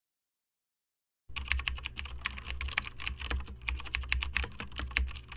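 Rapid computer-keyboard typing, a dense run of key clicks over a low hum, starting abruptly out of silence about a second in.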